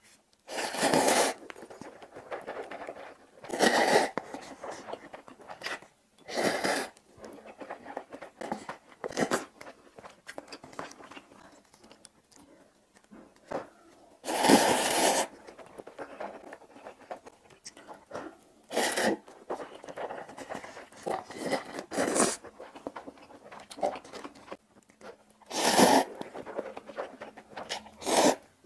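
Close-miked mouth sounds of a person eating spicy instant fried noodles: loud slurps of noodles every few seconds, about half a dozen, with quieter wet chewing in between.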